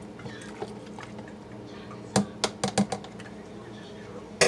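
Light ticking of a utensil stirring lye solution in a plastic measuring jug, then a quick run of five or six sharp clicks and taps about two seconds in and another sharp click near the end, over a faint steady hum.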